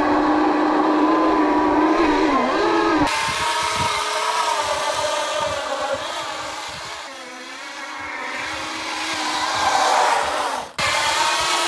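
Admit Jet Armor electric dirt bike doing a burnout: its electric motor whines as the rear tyre spins on the asphalt. The pitch sags about halfway through and climbs again with the throttle.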